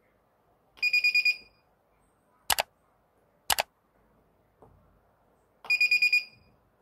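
Spot-welder board's buzzer giving two quick runs of about five high beeps each. Between them come two sharp cracks about a second apart as the pen electrodes fire spot welds on metal strip on a battery cell.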